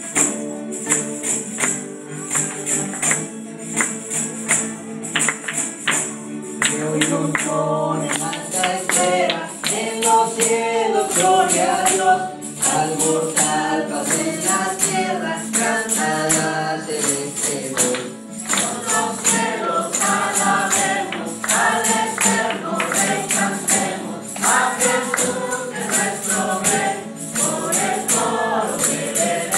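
Tambourine jingling in a steady beat over sustained instrumental accompaniment. About seven seconds in, a church choir joins in singing a hymn together.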